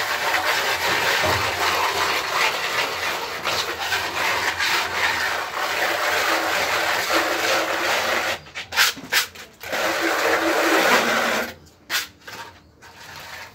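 Hand float rubbing over freshly applied Reibeputz (scratch-textured render) on a wall, a continuous scraping for about eight seconds, then a few shorter strokes before it stops near the end.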